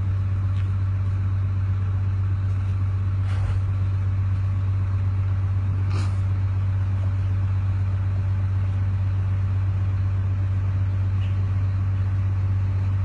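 Steady low engine drone that does not change, with two faint knocks about three and a half and six seconds in.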